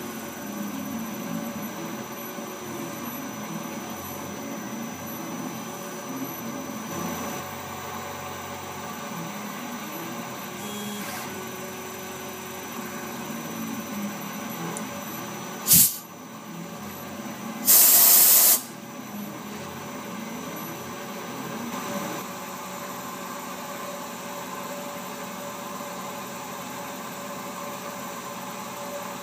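Tormach PCNC 770 CNC mill cutting mild steel with a small 3/32-inch end mill: a steady spindle tone, with the axis motors gliding up and down in pitch as the table moves. About halfway through comes a sharp snap, and two seconds later a loud hiss lasting about a second.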